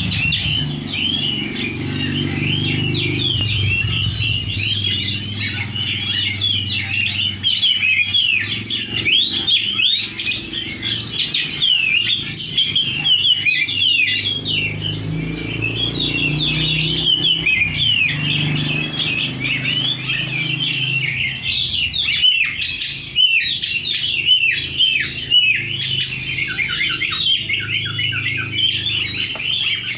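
Oriental magpie-robin (kacer) singing continuously and vigorously, a fast, varied stream of high chirps and trills with hardly a pause. A low steady hum runs underneath.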